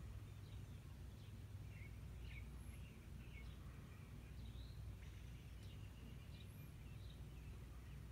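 Faint dawn birdsong: scattered short chirps and whistles from songbirds, repeating every second or so, over a low steady rumble.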